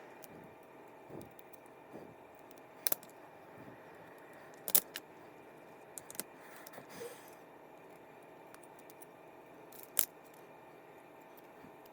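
Small hard parts of a fishing reel clicking as it is taken apart by hand: about five sharp, separate clicks, the loudest near the middle, between softer handling rustles.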